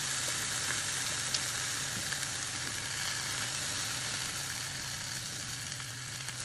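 Kale sizzling steadily in a hot Lodge cast-iron skillet just after chicken stock has been poured in, a constant hiss, with a few light clicks of a silicone spatula stirring the greens.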